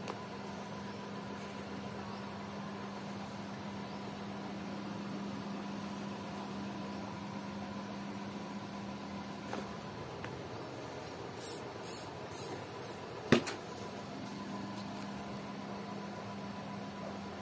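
Steady low background hum with a faint constant tone over it, and one sharp click about thirteen seconds in.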